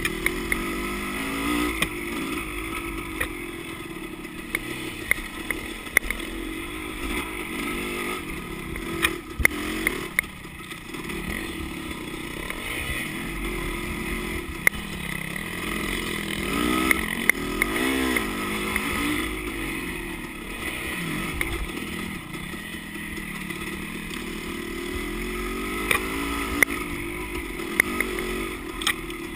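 Dirt bike engine running under load on a steep, rocky trail climb, its pitch rising and falling with the throttle, with scattered sharp knocks and clatter as the bike crosses rough ground.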